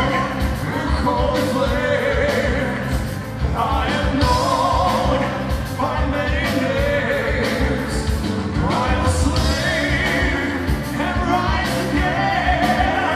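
Symphonic metal band playing live: a singer's long held phrases over a steady drum beat, guitars and keyboards.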